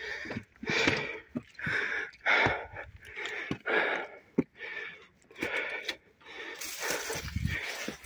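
A person breathing hard while climbing over rocks, one breath about every second.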